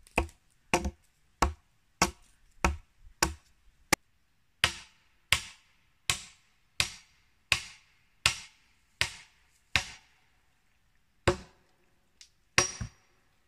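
Axe blows hewing a log, a dull chop a little under two a second. About four seconds in they give way to a steady run of sharper, ringing strikes against the tree trunk, slightly slower; after a short pause come a few last blows, the last with a brief metallic ring.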